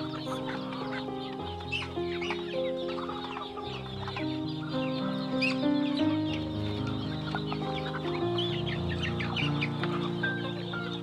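A flock of chickens clucking while feeding, many short calls scattered throughout, over background music with long held notes.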